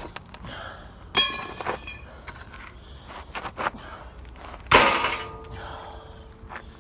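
Metal parts of a pool heater being knocked and pried apart: two loud clangs that ring briefly, about a second in and near five seconds in, with lighter knocks and rattles between them.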